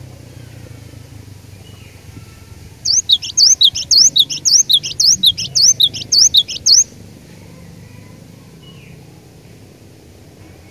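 Cinereous tit (gelatik batu) singing a fast run of sharp, high notes, about four a second, for some four seconds starting about three seconds in. Fainter, scattered bird chirps sound before and after.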